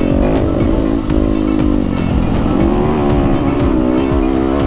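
Yamaha WR250F dirt bike engine running under way, its pitch rising and falling again and again as the throttle is opened and closed, with scattered knocks over the rough trail.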